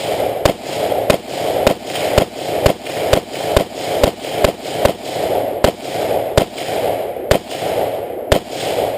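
AR-15 in 5.56 fired semi-automatically: about twenty shots in steady succession, roughly two a second, each ringing on into the next. The rifle cycles without a hitch, a sign that the fix for its gas block slipping forward is holding.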